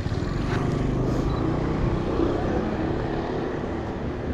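Motor scooter engine running steadily, a low continuous drone.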